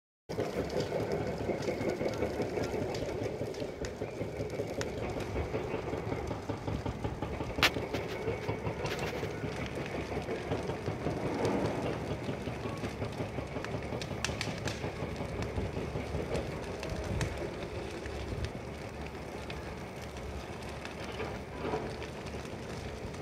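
Dry bush fire burning some distance away: a steady rushing noise full of crackling, with occasional sharp pops, the sharpest about eight seconds in.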